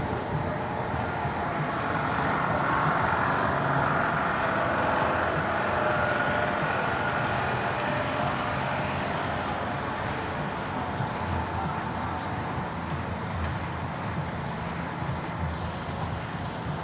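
Motor vehicle engine and road traffic noise. An engine sound grows louder a few seconds in and then slowly fades.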